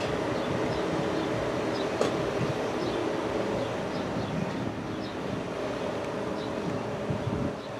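A steady mechanical drone with a low, even hum, with a single click about two seconds in and faint high chirps now and then.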